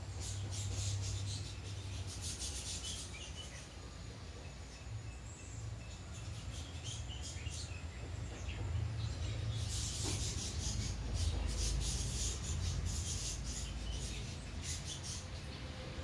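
Small birds twittering in rapid high-pitched bursts, in two stretches: one at the start and a longer one from about the middle to near the end. A steady low rumble runs underneath.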